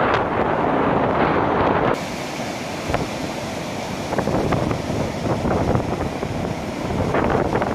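Storm surf breaking and washing up a sandy Baltic Sea shore, with gale wind buffeting the microphone. The wind rush drops abruptly about two seconds in, leaving the steady wash of the waves.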